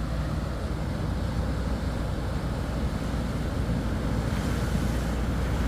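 Surf washing and wind buffeting the microphone, mixed with the steady running of a boat's outboard motors.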